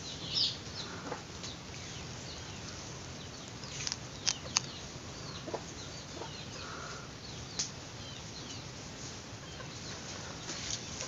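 Chickens clucking and chirping in the background, with scattered short calls, a few sharp clicks, and a steady low background hum.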